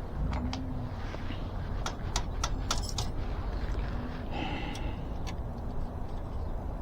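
Bicycle spokes and spoke nipples being handled while lacing an e-bike wheel: a run of light, sharp metal clicks in the first three seconds, then a short scrape a little past four seconds, over a steady low rumble.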